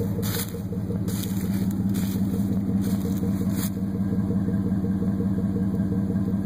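2003 Chevy Tahoe Z71's V8 idling steadily through a Summit Racing 2.5-inch X-pipe and Flowmaster Super 40 Delta Flow mufflers, heard at the tailpipe with an even low pulse. A few short scuffing noises come in the first few seconds.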